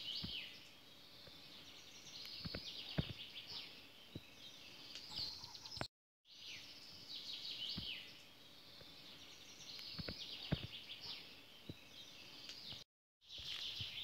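Several songbirds singing together in a dense chorus of high chirps and trills, with a few faint knocks underneath. The sound cuts out completely for a moment twice.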